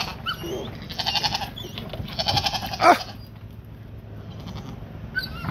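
Young goat bleating twice, high quavering calls about a second in and about two seconds in, the second trailing off in a falling pitch.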